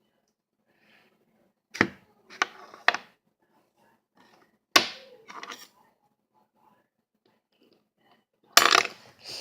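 Sharp knocks and clatters in three short clusters: three quick knocks about two seconds in, two more about five seconds in, and a louder clatter near the end.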